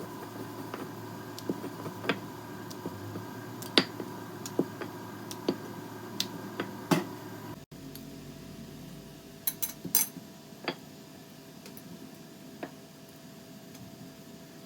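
Kitchen clatter: scattered light clicks and taps of dishes and utensils over a steady hum, with an abrupt cut about halfway through.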